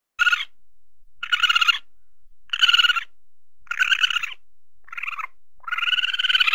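An animal call sound effect: a short, high, trilled call repeated six times, about once a second, each call made of rapid pulses.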